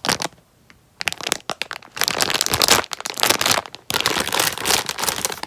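Plastic packaging crinkling and crackling as it is handled, in irregular bursts with a short pause about half a second in.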